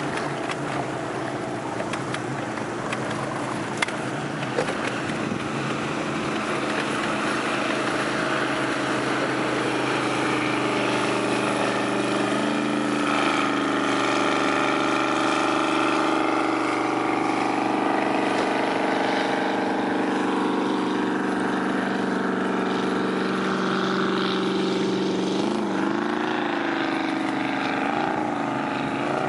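Motorboat engine running steadily under way. Its pitch shifts about halfway through and wavers up and down a few times near the end.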